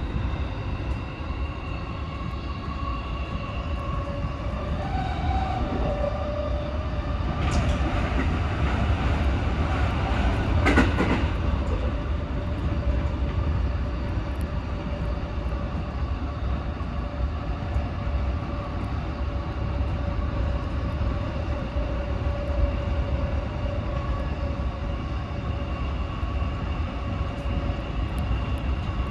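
JR West 223 series electric train running, heard from the driver's cab: a steady rumble of wheels on rail with a steady whine over it. A louder rush of noise rises and fades between about eight and eleven seconds in.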